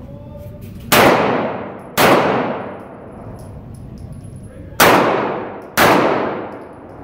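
Four pistol shots fired as two pairs about a second apart, each ringing out in a long echo off the concrete walls and ceiling of an indoor range.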